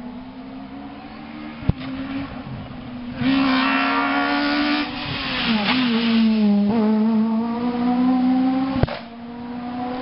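Rally car's engine at high revs, flat out along the stage: the note grows louder and climbs, dips briefly about halfway through, then climbs again. Two sharp cracks stand out, one just under two seconds in and one near the end.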